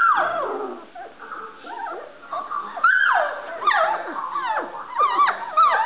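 Standard Poodle puppies crying and yipping: high calls that slide down in pitch, a long one at the start and another about three seconds in, then a quick run of short yips near the end.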